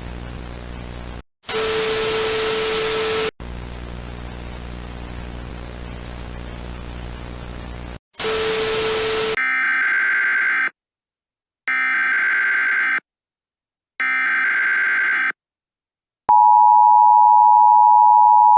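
Emergency Alert System broadcast tones. First hissing static with a low hum, cut twice by short louder bursts of static carrying a steady tone. Then three screeching SAME header data bursts, about a second apart, and near the end the loud two-tone EAS attention signal begins, which announces an alert.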